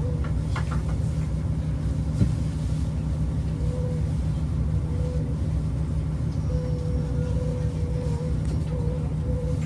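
Steady low rumble of a KTR8000-series diesel railcar idling at a standstill, heard from inside the passenger cabin. A faint whine comes and goes over it, and there are a few light clicks.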